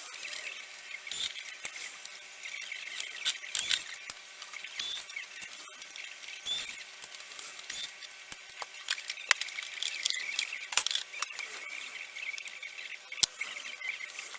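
Irregular clicks, scrapes and small squeaks of plastic and metal parts of an espresso machine being handled and worked on by hand, with one sharp knock about 13 seconds in.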